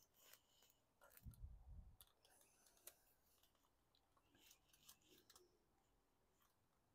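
Near silence, with a few faint scattered clicks and a faint low rumble about a second in.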